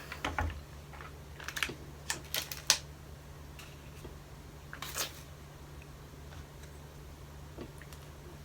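A metal spoon clicking and tapping against an ice cream cup, several sharp clicks in a cluster about two seconds in and one more near the middle.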